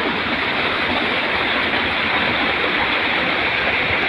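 Steady rush of a small waterfall and stream pouring over rocks, an even hiss of running water that does not change.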